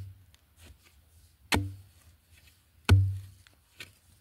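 Metal digging blade stabbed into soil. Two heavy thuds come about a second and a half apart, each with a short dull ring, and a lighter strike follows near the end.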